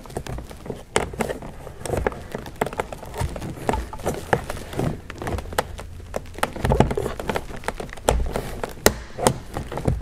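Plastic trim pry tool working the rear interior door handle trim of a BMW F10 5 Series: irregular clicks, creaks and knocks of hard plastic as the retaining clips are levered. A couple of sharper snaps come near the end as the trim comes free.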